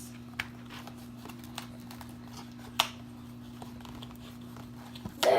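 Paper and sticker sheets being handled, with light rustling and a few small sharp clicks over a steady low hum, and a louder short rustle near the end.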